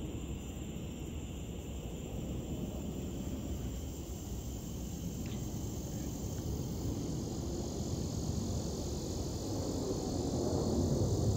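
Outdoor ambience: a steady low rumble that grows louder toward the end, with a faint steady high hum above it.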